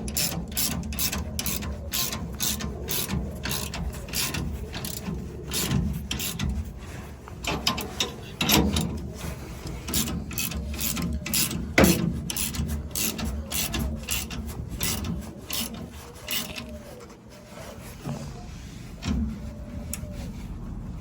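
Socket ratchet wrench driving a 19 mm bolt on a leaf spring clamp, its pawl clicking at about three clicks a second in long runs that stop near the end. Two louder metal knocks come in the middle.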